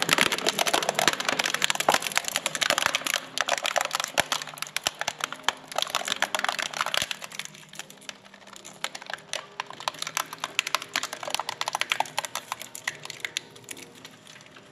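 Filamaker twin-shaft shredder's hooked steel blades tearing up a plastic plant pot: a dense run of sharp cracks and snaps, thinning out near the end as the last pieces go through.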